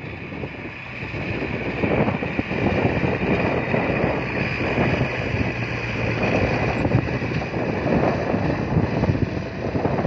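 Small Caterpillar crawler bulldozer's diesel engine running steadily as the machine moves over the dirt, with wind buffeting the microphone.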